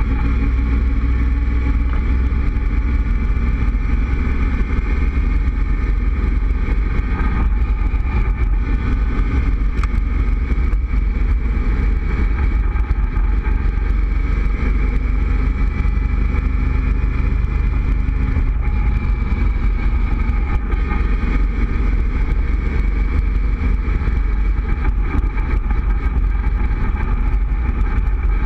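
Cobra roadster cruising at a steady speed, its engine running evenly under a strong low rumble of wind buffeting the open car.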